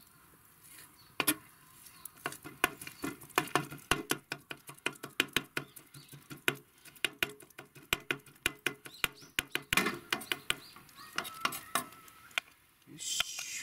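Kitchen knife chopping raw horse mackerel with miso and herbs on a wooden cutting board, a quick run of knife strikes several a second as the fish is minced into namerou paste. Near the end the knife scrapes the minced fish together across the board.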